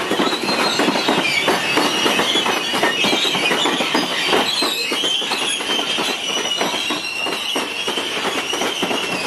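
Freight train of covered hopper cars rolling past close by, wheels clattering steadily over the rail joints, with a thin high wheel squeal running along with it.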